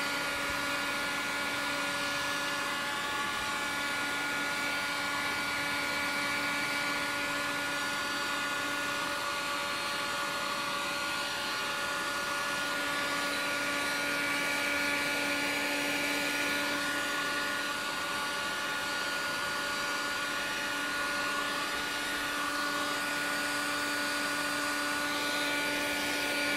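Electric heat gun blowing steadily, a fan-motor whine over a rush of air, as it dries water-soaked cane grill cloth so the stretched cloth shrinks tight.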